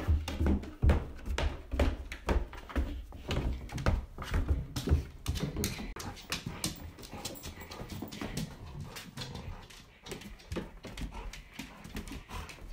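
Golden retriever play-biting and mouthing a person's arm, making small vocal noises, with many irregular knocks and thumps from the close, moving handling.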